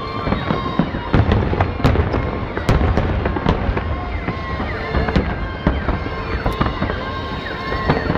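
Fireworks display: aerial shells bursting in a dense, continuous run of sharp bangs and crackling, with thin whistling glides over them.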